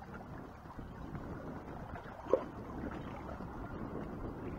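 Wind buffeting the microphone, with sea water moving against the rocks beneath, and one short squeak a little past halfway.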